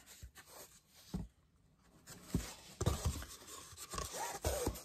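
A stretched canvas and a sheet of corrugated cardboard being handled: soft rubbing and scraping with a few light knocks, busier in the second half.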